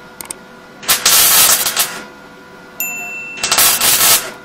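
MIG welding arc burning with 1 mm copper-coated Sv-08G2S wire in two bursts of about a second each, with a short blip just before the first.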